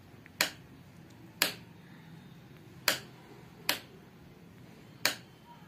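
Five sharp, separate clicks at uneven gaps of about one to one and a half seconds.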